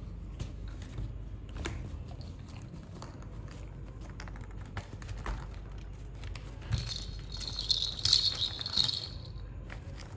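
A small toy bell jingling for about two seconds, after a soft thump about seven seconds in, as a kitten plays with a bell toy. Before it, light rustling and scratching of claws on fabric.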